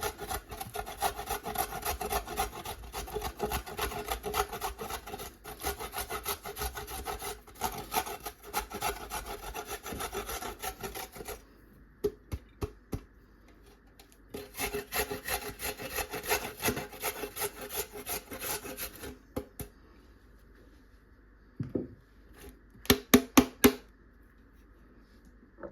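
Fresh ginger root being grated: rapid rasping strokes for about eleven seconds, a short pause, then another spell of grating for about five seconds. A few sharp taps follow near the end.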